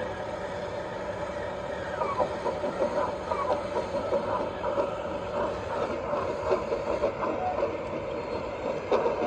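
Radio-controlled construction model machinery working: small electric motors running steadily, with many quick clicks and short squeaks throughout.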